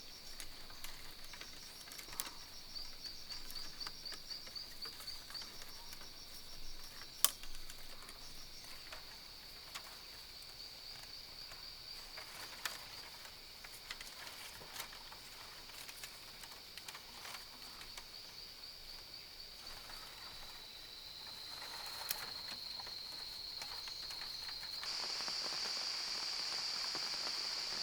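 Rainforest insect chorus: a steady high-pitched trill with repeating chirp series, over scattered sharp clicks and taps. The chorus swells louder about three-quarters of the way through.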